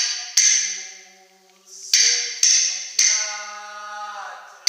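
Small ringing percussion struck about four times, each note sharp at the start and then ringing and fading away.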